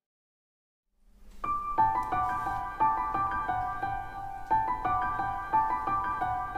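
Near silence for about a second, then background piano music starts: a melody of single struck notes.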